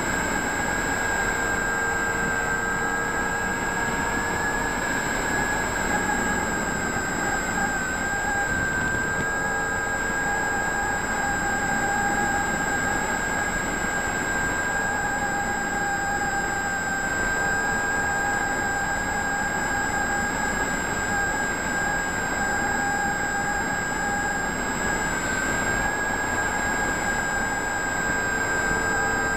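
Multiplex FunCub RC plane's electric motor and propeller running at a steady throttle: a constant high whine with the rush of air past the airframe, heard up close from a camera mounted on the plane.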